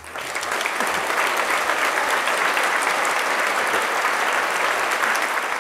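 Large audience applauding, building up over the first second and then holding steady.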